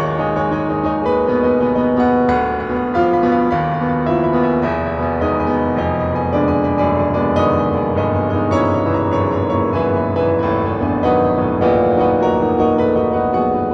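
Solo piano playing a classical piece: full chords over a sustained bass, with new notes struck in quick succession.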